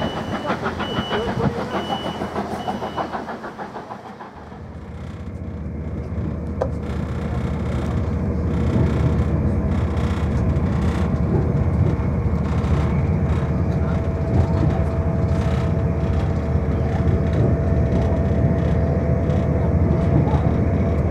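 Passenger train heard from inside the carriage, picking up speed and then running steadily, with an even rumble and a steady whine. Before that, about four seconds of clattering rail noise with short repeated high beeps as a train pulls away.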